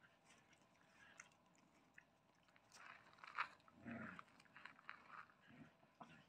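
Faint sounds of puppies playing tug-of-war with a cord: scuffling and tugging, busiest in the middle, with one sharp click about three and a half seconds in.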